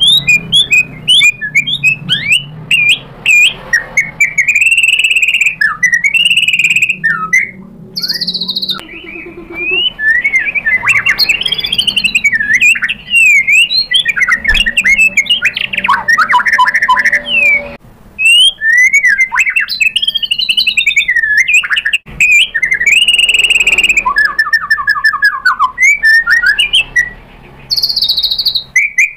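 White-rumped shama (murai batu) singing a loud, varied song of whistled phrases that slide up and down in pitch, mixed with quick runs of chirps, with only brief pauses between phrases.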